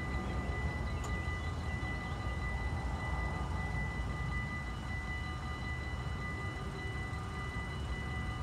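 Level-crossing warning bell ringing steadily with the barriers down, a continuous high metallic ringing, over a low rumble.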